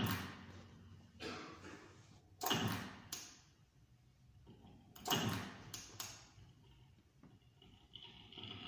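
Sparse, sharp percussive hits from a live experimental electronic music improvisation, about seven in all, each with a short ringing tail and quiet gaps between; the loudest come about two and a half and five seconds in. A faint sustained tone enters near the end.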